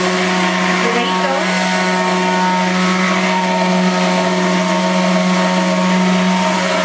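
Hand-held immersion blender running steadily, held at the bottom of a tall beaker to emulsify milk and sunflower oil into alioli: an even, unbroken motor hum.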